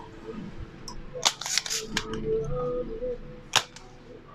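Spring-loaded desoldering pump snapping as its plunger fires, sucking molten solder off a capacitor's leg on a TV circuit board. A quick cluster of sharp snaps comes about a second in and a single snap a little before the end.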